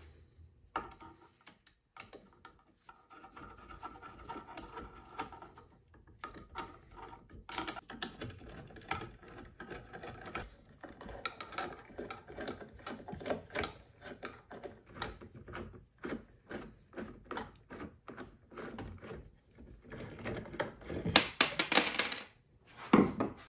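Bolts being backed out of a CNC router's Z-axis spindle holder and the metal parts handled: irregular clicking, scraping and light rattling, with a louder clatter near the end.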